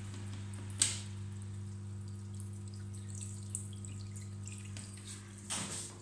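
Drain water from a Samsung washing machine running out of the grey drain hose into a plastic utility sink, over a steady low hum. A sharp click comes about a second in.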